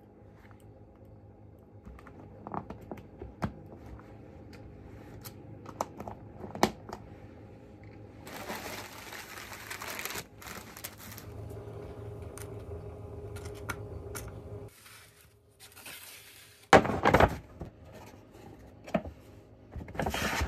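Paper rustling and crinkling, with light taps and clicks as tongs, cups and pulp food containers are handled on a table. The loudest, sharpest rustle comes about three-quarters of the way through.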